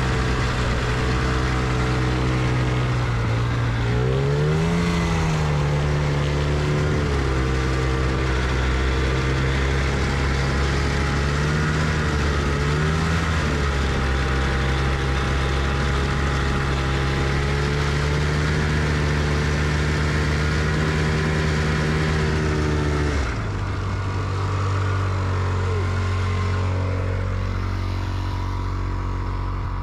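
Diesel tractor engine running steadily, with two brief rises and falls in revs, then settling to a lower, steady idle about three quarters of the way through.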